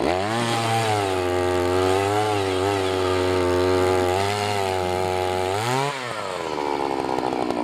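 Gas-powered Eskimo ice auger's small engine revving up to full throttle as the bit drills down through lake ice. It holds at high revs with slight dips under load, briefly rises about six seconds in, then drops back to idle.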